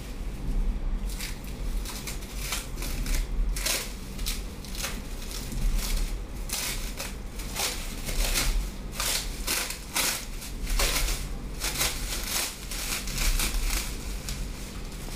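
Crinkling and rustling of wrapping in many irregular, sharp crackles, as a new guillotine paper-cutter blade is unwrapped. A low steady hum lies under it.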